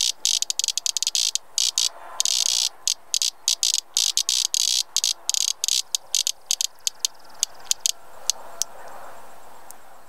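Male prairie cicada (Tibicen dorsatus) buzzing its distress call from its timbals while caught and eaten by a Chinese mantid. The high buzz stutters in broken bursts, then thins after about five seconds into scattered single clicks that fade out near the end.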